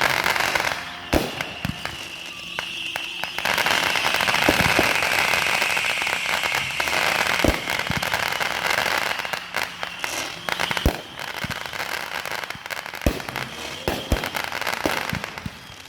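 Fireworks going off: a dense, continuous crackling with sharp single bangs every couple of seconds.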